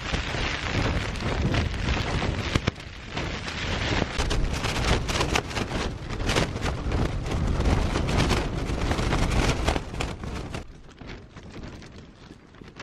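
Heavy rain and gusting wind battering a Zpacks Altaplex trekking-pole tent, heard from inside: a dense wash of rain on the fabric with sharp gusts and wind buffeting the microphone. It drops to a quieter wind about ten and a half seconds in.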